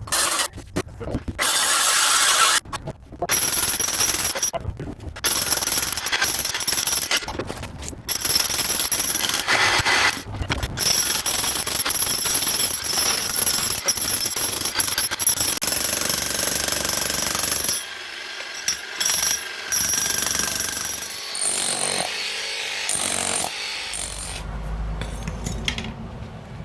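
Jackhammer breaking up a concrete floor, running in loud stretches with short breaks between them; the sound turns quieter and more broken about two-thirds of the way through.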